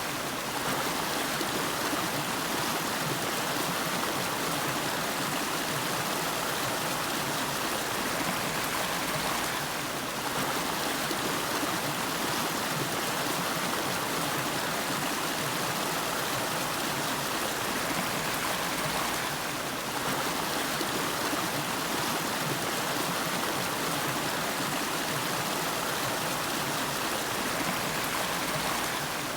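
River water flowing steadily over a rocky bed: a continuous, even sound of running water with no break.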